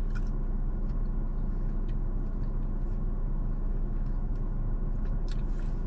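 Steady low hum of a car's idling engine heard from inside the cabin, with a few faint clicks.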